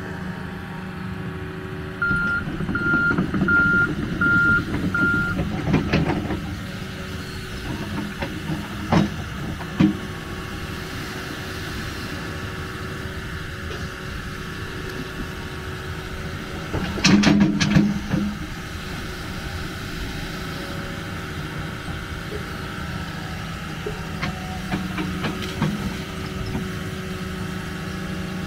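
John Deere 210G excavator's diesel engine running steadily. About two seconds in, its travel alarm beeps five times on one tone. A few sharp knocks follow, and about seventeen seconds in there is a brief louder burst.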